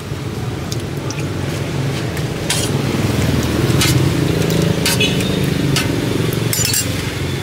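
A passing motor vehicle's engine hum swells to its loudest about halfway through and then fades. Over it come a few light clinks of a metal spoon scooping from stainless steel pots.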